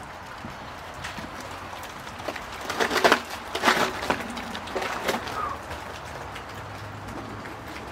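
Footsteps crunching and snapping over broken wood and debris: a handful of loud, crackling steps in the middle, the loudest about three seconds in.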